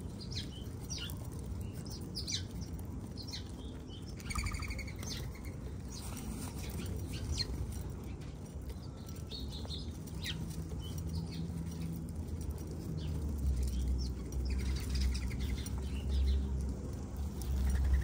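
Small backyard birds at a seed feeder: scattered short chirps, wing flutters and light pattering. There is a fuller call about four seconds in, and a low steady drone joins in the second half.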